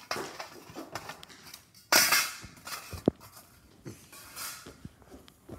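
Drumming on a tabletop: irregular sharp knocks, with a louder crash about two seconds in and a sharp crack about a second after it.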